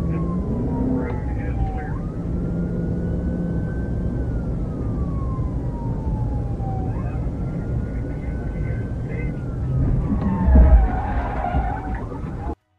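Police car siren wailing, its pitch rising and falling slowly about every five seconds, over car engine and road noise. About ten and a half seconds in comes a heavy thump with a clatter, and the sound then cuts off abruptly.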